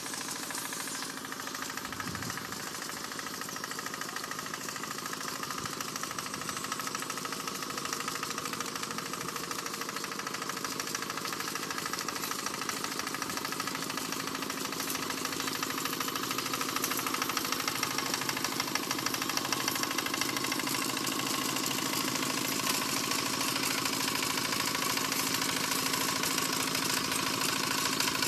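Tractor engine plowing a rice paddy, running steadily with a rapid knocking chatter and growing gradually louder.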